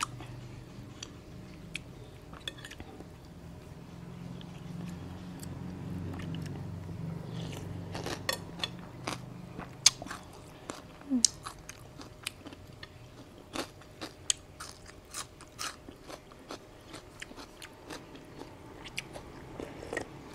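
A person eating noodle soup close to the microphone: chewing with wet mouth smacks and clicks, which come thick and fast through the second half.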